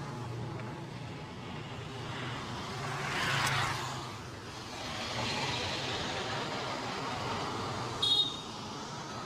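Street traffic noise, with a vehicle passing about three seconds in and a short high-pitched beep near the end.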